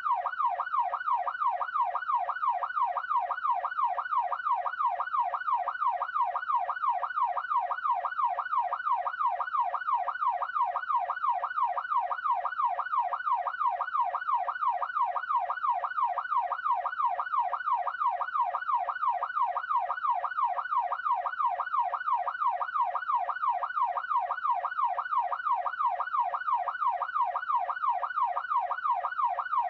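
Police siren in yelp mode: a fast, continuous up-and-down wail, about two to three sweeps a second, repeating evenly without a break.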